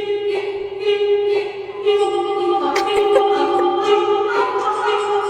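Background pop song with a sung vocal line of long held notes.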